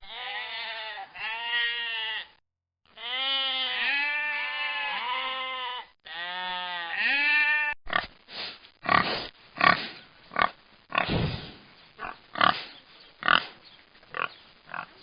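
A series of short animal calls with clear pitch, each rising and then falling, for about the first half. From about halfway they give way to a pig's irregular grunting, about a dozen short grunts.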